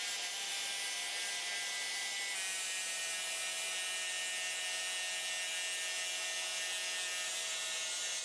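Angle grinder running steadily with a high motor whine and hiss as its disc grinds the paint coating off a thin steel plate. Its pitch steps slightly lower about two seconds in.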